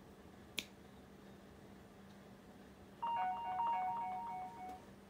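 A single faint click, then about three seconds in a short electronic beeping tune: clean tones stepping back and forth between two pitches for about a second and a half.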